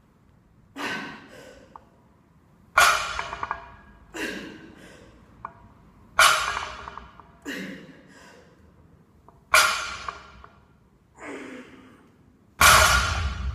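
A weightlifter's forceful breathing through repeated heavy sumo deadlift reps: a loud, sharp breath about every three and a half seconds, with a quieter breath between each, the loudest near the end.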